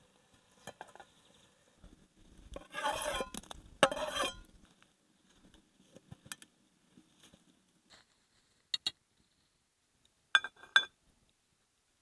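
Tableware being handled: two short scraping, rustling bursts, then sharp clinks with a brief ring, a close pair followed by two more about a second and a half later.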